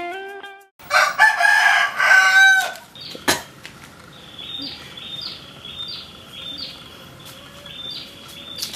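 A rooster crows once, loud and drawn out for under two seconds, about a second in; afterwards faint short bird chirps repeat at a steady pace.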